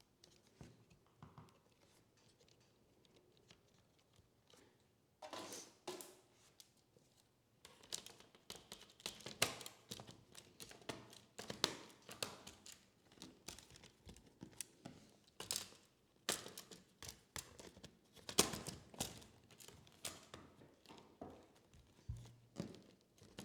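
Laptop being reassembled by hand: short plastic and metal clicks and taps, sparse at first, then coming thick and fast from about five seconds in.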